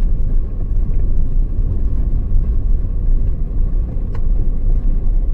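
Car on the move: a loud, low rumble of road and engine noise, fluttering unevenly in level.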